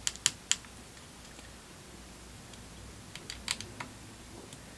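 Scattered sharp clicks and taps of fingers and small parts on an opened iPhone SE being worked on: three quick clicks at the start and another cluster about three seconds in.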